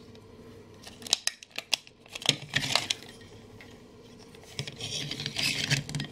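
Hard plastic parts of a Darth Vader action figure and its rebuild-table stand being handled: several sharp clicks and taps in the first half, then scraping and rubbing of plastic on plastic as the stand is turned over and the figure is worked loose.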